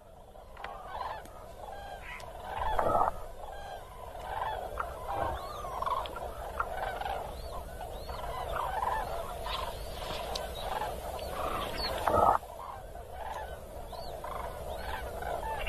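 A large flock of common cranes calling in a dense, overlapping chorus of many short arching calls. Two louder, lower calls stand out about 3 and 12 seconds in, from a rutting bull moose.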